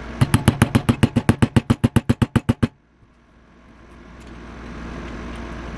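A hammer tapping a sight into the dovetail of a BB pistol's slide: about twenty quick, evenly spaced sharp taps in under three seconds that stop abruptly, followed by a steady low background noise.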